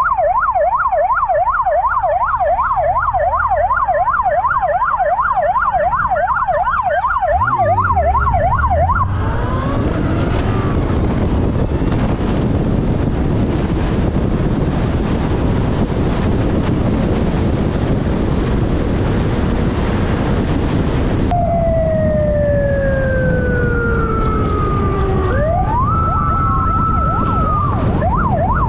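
Police motorcycle siren sounding a fast up-and-down yelp, drowned about nine seconds in by a loud rushing of wind and road noise. Slow falling wail tones follow, then a rise back into the fast yelp near the end.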